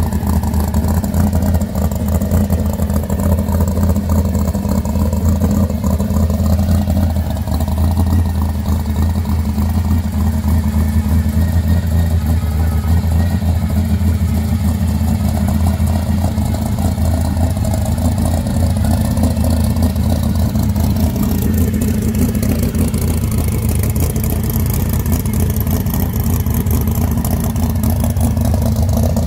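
Supercharged V8 of a 1967 Chevy II SS idling steadily with a deep exhaust rumble.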